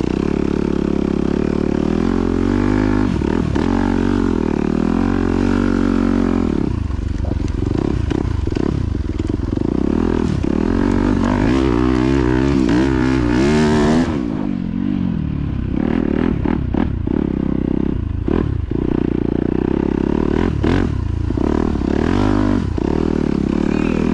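Yamaha YZ250F's four-stroke single-cylinder engine revving up and down again and again as the throttle opens and closes, the note climbing to its highest about fourteen seconds in and then falling away suddenly.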